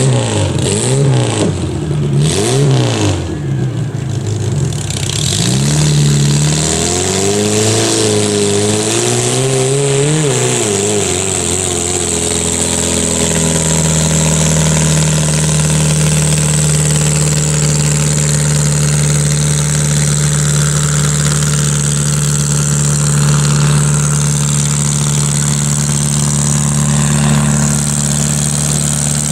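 Modified garden pulling tractor engine revving up and down in short blips, then wavering at higher revs, before settling into a steady idle about twelve seconds in.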